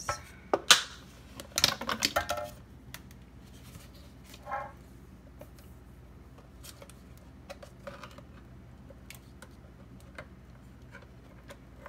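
Sharp plastic clicks and knocks from cut-open plastic hair gel bottles being handled over a zip-top bag in a glass, a cluster of them in the first two seconds or so, then only faint scattered ticks.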